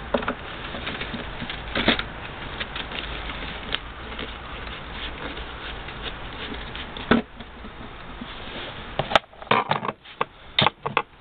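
Hand screwdriver turning out the screws that hold the blower motor in a VW T4 rear heater unit's plastic casing: scattered clicks and scrapes over a steady hiss, with a run of sharper clicks and knocks near the end.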